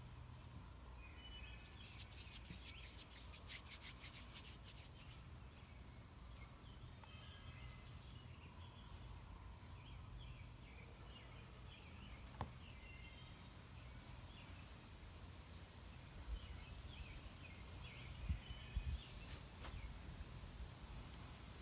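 Faint birds chirping over a low steady hum, with a quick run of soft rapid clicks a couple of seconds in.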